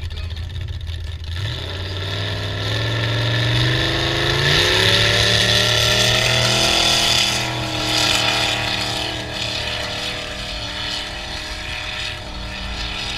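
Lifted mud-racing pickup truck's engine revving up hard as the truck accelerates down the mud pit, its pitch climbing for several seconds. It then holds at high revs and grows fainter as the truck pulls away.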